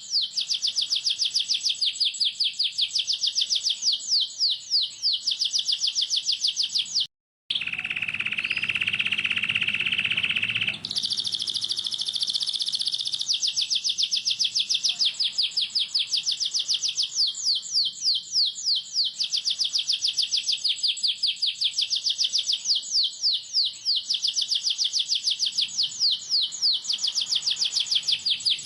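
Domestic canary singing a fast rolling song of rapid, repeated high chirps. About seven seconds in the sound cuts out for a moment. A lower buzzing roll follows for about three seconds, then the rapid chirping resumes.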